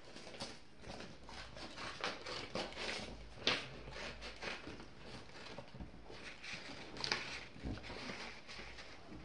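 Paper being handled and worked on a table: irregular rustling and scraping, with two sharper clicks, one about a third of the way in and one about three-quarters in.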